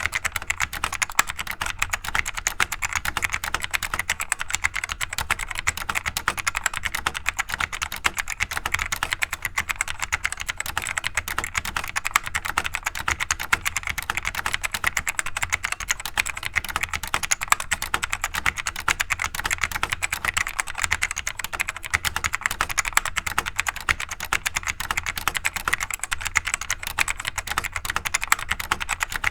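Continuous fast typing on a vintage Costar CSK-7102N keyboard with D-TRNS clicky switches, a variant of the Alps.tw Type OD1. The keystrokes come in a dense, steady stream, and the switch click is light and inconsistent.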